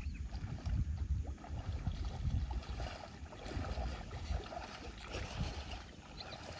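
Wind rumbling on the microphone in uneven gusts, with small waves lapping at the water's edge.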